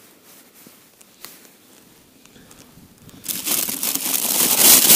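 A few faint clicks, then from about three seconds in a loud crinkling rustle of a bag lasting about two seconds, as a freshly caught fish is put into it.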